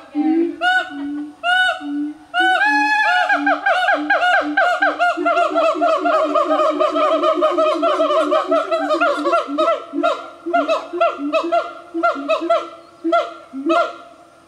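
Siamangs singing: a long series of short, pitched hooting calls that comes faster after a couple of seconds into a rapid run of about five notes a second, then thins out and fades near the end.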